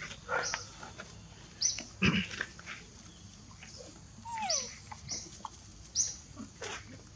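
Macaque monkeys making scattered short, high squeaks and a short falling call, with a soft thump about two seconds in.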